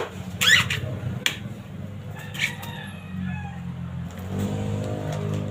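Machete chopping into a sprouted coconut's fibrous husk: three sharp strikes in the first second and a half, one of them with a brief high whine mixed in.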